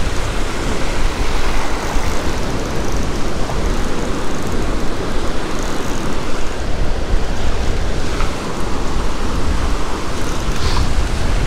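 Surf breaking along the beach, with wind buffeting the microphone: a loud, steady rush of noise with a heavy low rumble.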